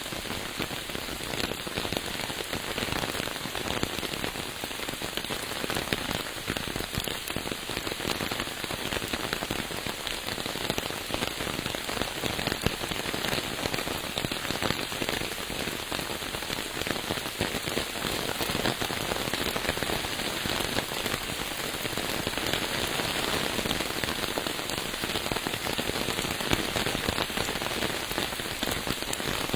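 Steady rain falling, a dense, unbroken patter of drops hitting surfaces.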